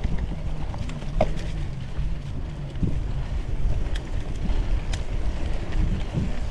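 Cyclocross bike ridden over rough dirt and grass: a steady rumble of tyres and frame over the bumpy ground, with wind buffeting the microphone. A few sharp clicks and rattles come through, about a second in and again around four and five seconds in.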